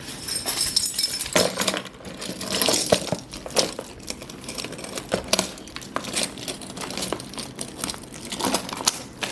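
A bunch of metal keys jingling and clinking while they are used to slit open the plastic wrap of a sealed trading-card box, with crinkling of the wrap and irregular sharp clicks throughout.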